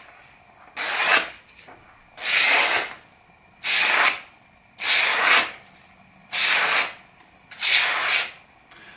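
Maxace Amber 2S folding knife blade slicing through magazine paper in six strokes, one about every second and a half, each a short hissing cut. The cuts go through cleanly, the sign of a sharp edge.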